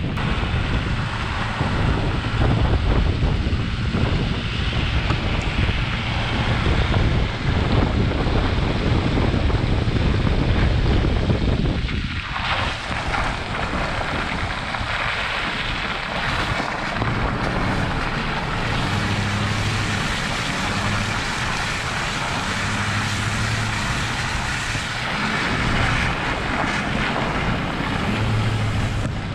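Pickup truck driving on a wet, muddy gravel road, heard from a camera mounted outside the truck: wind rushing over the microphone on top of tire and road noise, with a low engine hum underneath. The low rumble eases about twelve seconds in.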